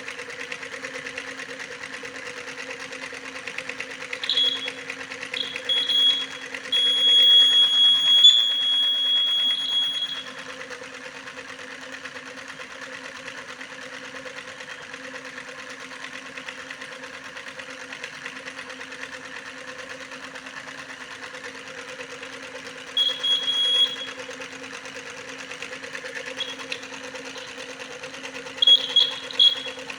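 A small electric motor running steadily with a fast, even whir and hum. A high-pitched electronic beep sounds intermittently over it: a few short beeps, then one long beep of about three seconds, and more short beeps near the end.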